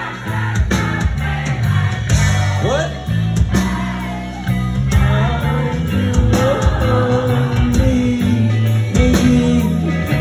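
Live band playing loud rock-pop music, with bass, electric guitar and drums under a singer's voice, heard from within the crowd.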